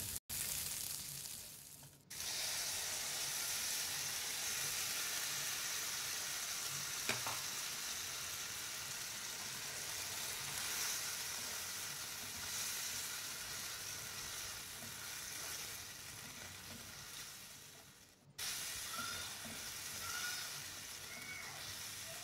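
Sliced peppers, onions and scallions sizzling in hot oil and sauce in a non-stick wok, stirred and turned with a silicone spatula. The sizzle drops out briefly near the start and again about eighteen seconds in.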